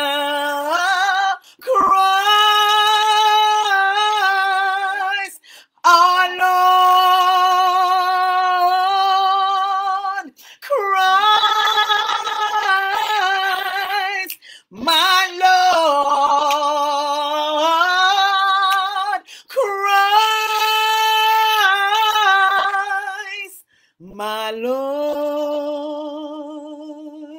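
A woman singing unaccompanied: long held notes with vibrato, in phrases of about four seconds with short breaks for breath between.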